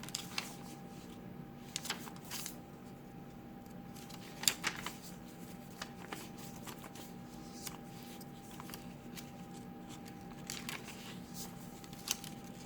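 Paper rustling and handling: pages of a handmade junk journal being turned and its tucked cards moved, with a few brief crinkles and taps scattered through, over a faint steady hum.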